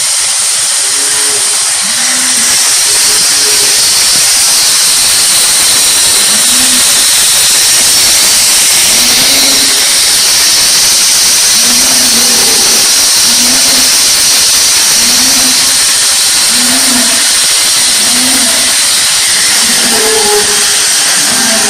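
Dairy milking machine running with a loud, steady hiss of vacuum and air, with short low tones repeating roughly once a second underneath.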